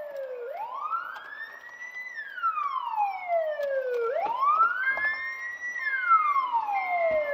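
Police car siren wailing, its pitch rising slowly and falling slowly, twice.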